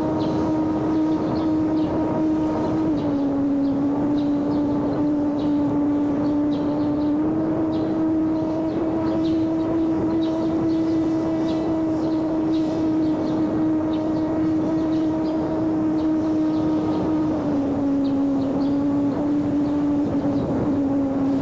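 Homemade electric radio-control airplane's motor and propeller running in flight on a 3-cell LiPo battery: a steady buzzing drone whose pitch drops slightly and comes back up a few times as the throttle changes.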